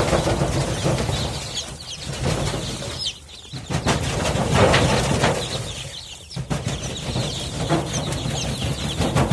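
A crowded flock of five-day-old local (desi) chicks peeping, many short high falling chirps overlapping continuously, over a steady low hum.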